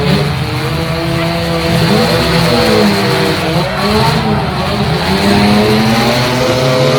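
Several demolition derby cars' engines revving at once, their pitches rising and falling against each other, with tire noise.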